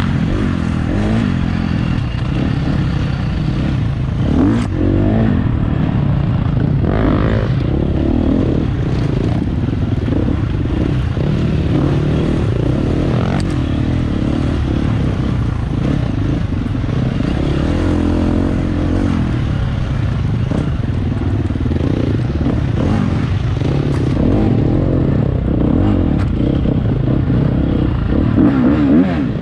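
Off-road dirt bike engine running hard and revving up and down again and again with the throttle, with a few sharp knocks and clatter from the bike.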